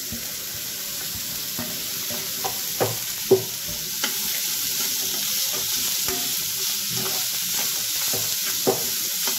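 Chopped capsicum, carrot and green chillies sizzling in oil in a non-stick pan while a metal spatula stirs them, with a few sharp scraping taps of the spatula on the pan, the loudest a little over three seconds in.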